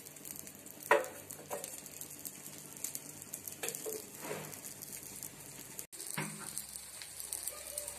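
Oil sizzling steadily under an uttapam frying on a hot tawa, with a few short knocks.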